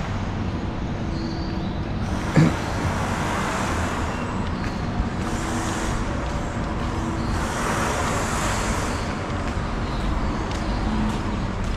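Steady rumble of street traffic, with one short sharp knock about two and a half seconds in.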